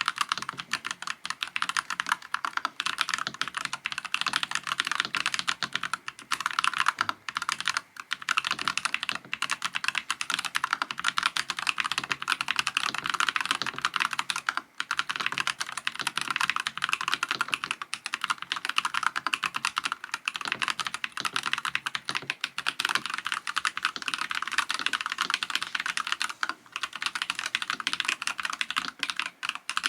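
Typing on a NuPhy Halo96 mechanical keyboard with Baby Kangaroo switches: fast, continuous key clacks with only a few brief pauses.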